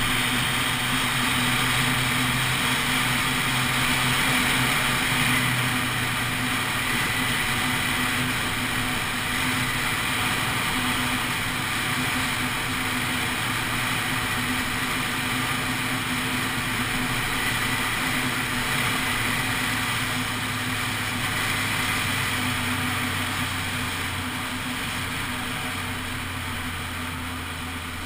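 Honda CBF600 SA's inline-four engine running at a steady cruise, heard under steady wind and road noise. The engine note drops and the sound gets quieter near the end.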